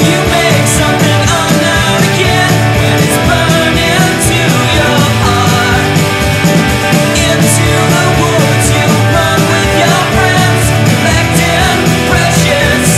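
Rock song playing loud and steady, with a band's dense mix and a steady beat.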